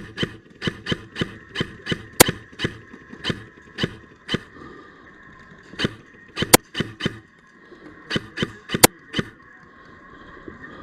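Airsoft guns shooting: a running string of sharp cracks a few tenths of a second apart, some loud and close and others fainter. The loudest shots come about 2, 6.5 and 9 seconds in, and the shooting thins out near the end.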